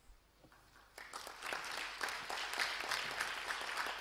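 Audience applauding: many hands clapping, starting about a second in and quickly building to a steady level.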